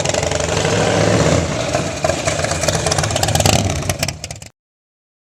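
Bagger motorcycle engine running loud through a two-into-one exhaust with a power-cone baffle. It swells about a second in and again near three and a half seconds, then cuts off abruptly.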